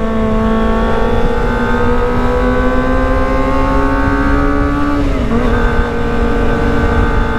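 Kawasaki ZX25R's inline-four engine running at high revs on the move, its note climbing slowly for about five seconds, breaking briefly, then holding steady, over a low wind rush.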